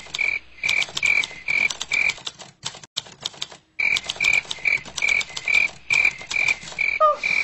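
A rhythmic call, a short high note repeating about two and a half times a second over a run of sharp clicks. It breaks off for about a second and a half in the middle, and a brief gliding, moan-like sound comes near the end.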